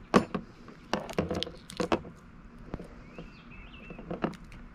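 Shell of a blue crab cracking and snapping as it is broken apart by hand during cleaning: a series of sharp snaps, most in the first two seconds and another late on.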